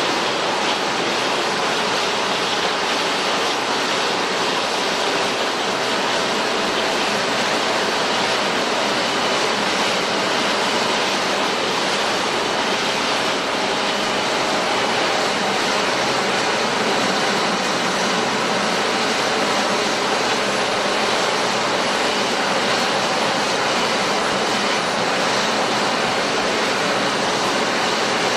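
Airbus A350's Rolls-Royce Trent XWB jet engines running with a loud, steady roar and a faint whine inside it, not rising or falling.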